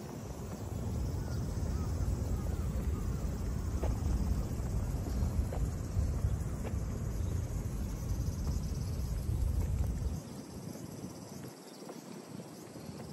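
Wind buffeting the microphone as a low, gusty rumble that dies down about ten seconds in, with faint insects chirring behind it.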